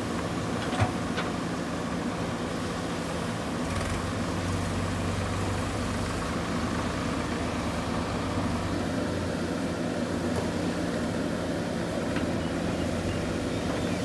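A JCB backhoe loader's diesel engine runs steadily while the backhoe arm digs, its low note growing stronger about four seconds in. A single short knock comes a little under a second in.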